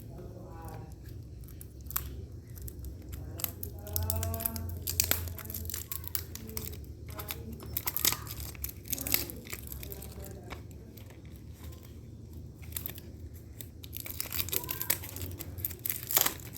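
Packaging being torn open and crinkled by hand, in irregular bursts of tearing and rustling, loudest around 5, 8 and 16 seconds in.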